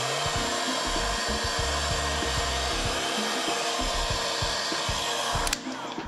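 Heat gun blowing steadily while shrinking PVC heat-shrink wrap onto a battery pack, switched off about five and a half seconds in.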